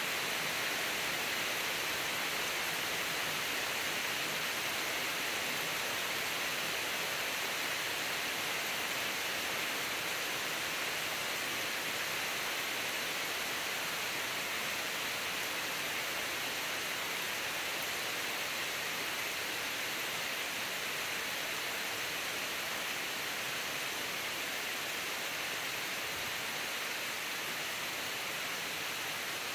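Steady rain falling on woodland trees and a lawn, an even hiss with no let-up.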